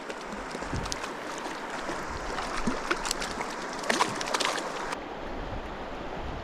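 Mountain creek flowing steadily, with a few brief sharp sounds about a second, three and four seconds in.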